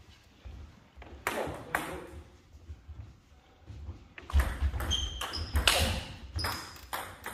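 Table tennis ball clicking off the bats and table: two strokes about a second in, then a quick rally from about four seconds in, with low thuds underneath.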